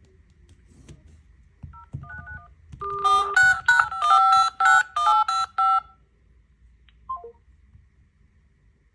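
Electronic phone ringtone beeps. A few short two-tone beeps lead into a fast melody of beeps lasting about three seconds, and a quick falling three-note blip follows near the end.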